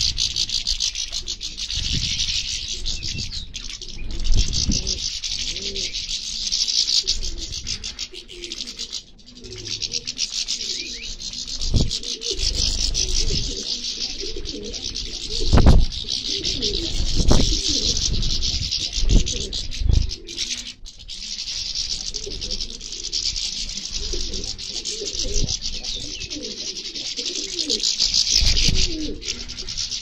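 Many small finches chirping and twittering together in a dense, continuous chorus. A few low coos come and go, and there are occasional short low thumps.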